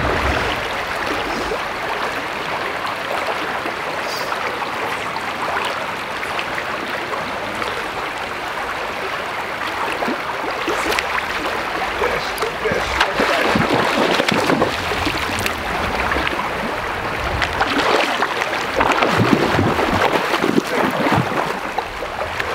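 Rushing river water: a steady, noisy rush of current that grows louder and more uneven from about halfway through.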